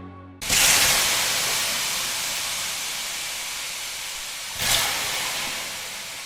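Sudden loud hissing noise, even across all pitches, starting about half a second in and slowly fading, with a second brief swell near five seconds.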